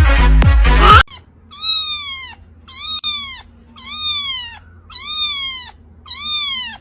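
Music cuts off about a second in, then a cat meows five times, about once a second, each meow sliding down in pitch.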